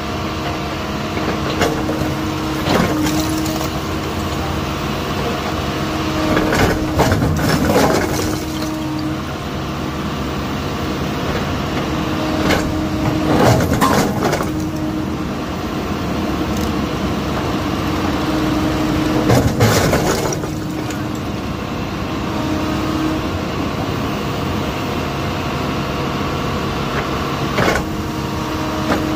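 Excavator engine and hydraulics running steadily while its bucket works bricks loose from a brick wall. Bricks crack and clatter down onto the rubble pile several times, loudest about two-thirds of the way through.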